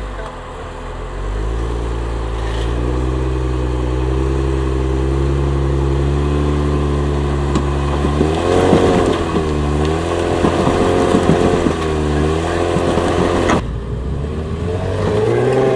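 Off-road 4x4's engine climbing a rocky step. It runs steadily at first, then from about eight seconds in the revs rise and fall again and again as it works over the rocks.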